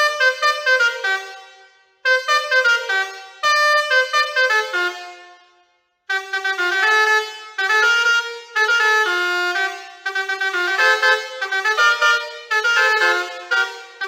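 Basuri 4.0 six-trumpet musical air horn playing a tune in quick, short horn notes. The tune breaks off and dies away about two seconds in and again about six seconds in, then runs on without pause.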